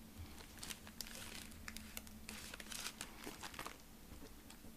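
Plastic snack wrapper crinkling as it is handled, in a run of irregular, faint crackles that ease off near the end.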